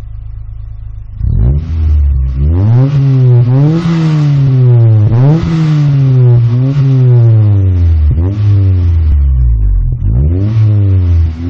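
A vehicle engine idling, then revved repeatedly from about a second in, its pitch rising and falling several times.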